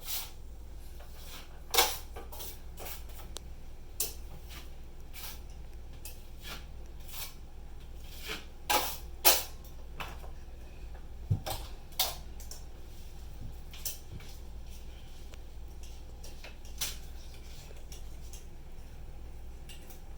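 Small metal hardware and hand tools clicking and clinking irregularly as they are handled while the ceiling fan is being wired up. The loudest knocks come about 2, 9 and 12 seconds in.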